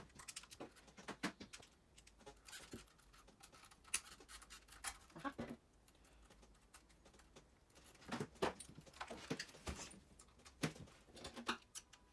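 Faint, irregular clicks and short rattles of small plastic and metal parts and a screwdriver being handled while an RC truck's front suspension is put together, with a busier run of handling sounds in the second half.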